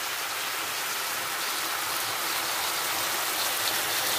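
Marinated chicken frying in a hot pan: a steady, dense sizzle.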